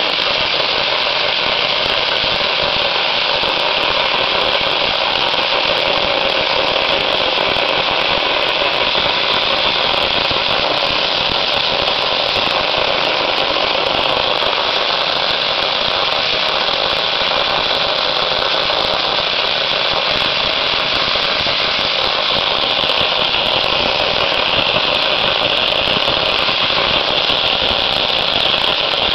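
Dry ice blasting gun firing a jet of compressed air and dry ice pellets against cast iron, stripping old paint: a loud, continuous hiss without a break.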